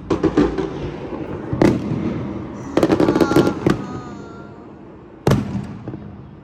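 Fireworks going off: several sharp bangs spaced a second or more apart, and about three seconds in a quick run of crackling pops with a faint whistling tone over it.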